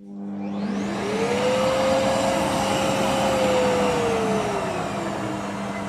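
Bosch AquaWash & Clean Series 4 wet-and-dry vacuum cleaner (2000 W) switched on: its motor spins up over about a second and a half with a rising whine and a rush of air, then runs steadily. From about four seconds in its pitch drops as it settles to its lowest speed.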